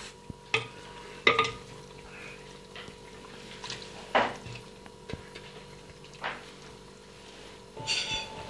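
Metal ladle clinking and scraping against the inside of a clay pot while scooping out braised cabbage and meat: a handful of separate sharp clinks, the loudest a little over a second in and about four seconds in.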